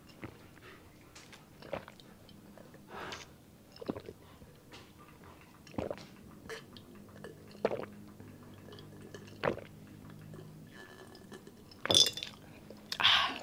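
Close-miked gulps and swallows as a drink is taken from a glass, one every second or two, with two louder sounds near the end as the glass is drained.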